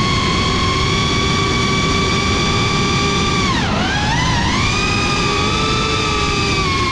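A drone's motors and propellers whining at a steady pitch over a rushing of air, recorded by the camera on board. About three and a half seconds in the whine dips in pitch, then climbs back.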